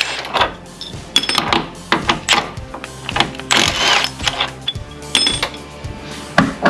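Background music, with the clicking and rattling of a socket wrench on a 3/4 inch socket working a body mount bolt loose.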